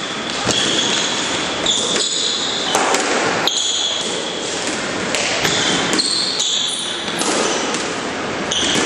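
A squash rally: the ball is struck by racquets and hits the court walls and floor in sharp smacks about every second, with court shoes squeaking short and high on the floor between shots.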